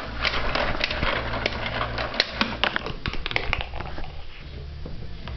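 Quick, irregular plastic clicks and rattles of Nico Notenkraker game pieces and balls being handled, over a low hum.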